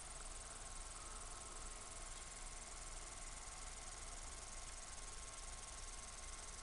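Faint, steady hiss of HF receiver band noise from a Yaesu FT-450D tuned to 10 meters, with a thin steady tone near 1 kHz from a weak PSK31 signal.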